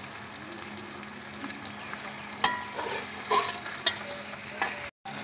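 Chicken pieces frying in oil in an aluminium pot, sizzling steadily, while a metal spatula stirs them and scrapes and knocks against the pot several times in the second half.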